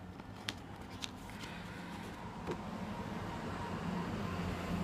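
A steady low hum with a rushing noise that builds over the last few seconds, and a few light clicks as the cardboard box set is handled.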